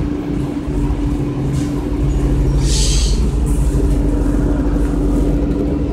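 Interior of a 2002 Orion VII CNG bus under way: a steady low engine drone with a steady whine held over it, and a short hiss about three seconds in.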